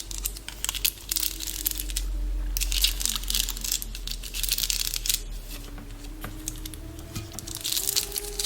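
Close-miked crackling, crinkling sounds in several bursts, over a low steady rumble and a soft, wavering hummed tone.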